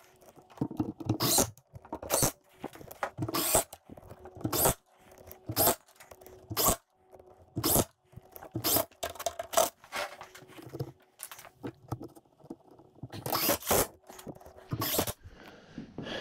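Cordless drill-driver driving wood screws into pallet wood in a string of short bursts, more than a dozen, each under half a second.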